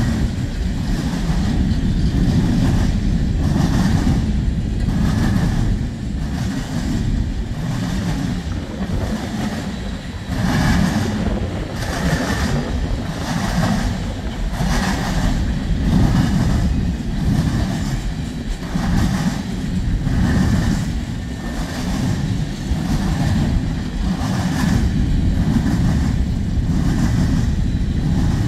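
Empty open-top coal hopper cars of a CSX freight train rolling past: a steady low rumble with repeated clacks of steel wheels over the track, about one a second.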